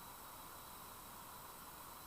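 Faint steady hiss of background noise, with no distinct sound standing out.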